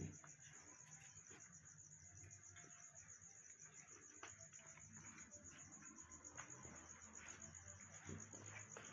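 Faint, steady high-pitched insect trill made of rapid, even pulses, with scattered soft clicks and rustles underneath.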